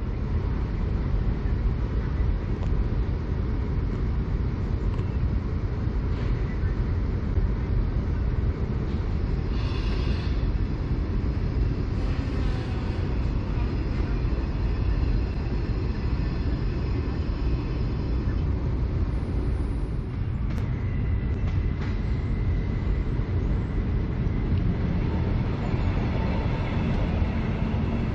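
Koleje Mazowieckie EU47 electric locomotive pulling out with its train: a steady, loud low rumble of the train running on the track. Brief higher sounds come a third of the way in, and a thin steady whine joins in for the last third.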